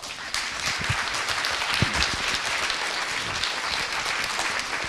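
Audience applauding, starting abruptly and holding at an even level.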